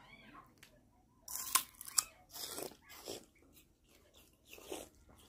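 A puppy crunching and chewing dry, fibrous food pieces from a bowl: a series of irregular crunches, the loudest between one and two seconds in.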